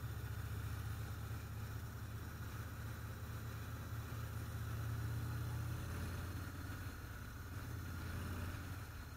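Motorcycle engine running at a steady road speed, a low, steady drone that swells a little about five seconds in.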